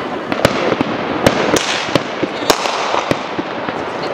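Fireworks bursting overhead: a steady crackle broken by sharp bangs at uneven intervals, several a second at times, the loudest a little past one second in and about halfway through.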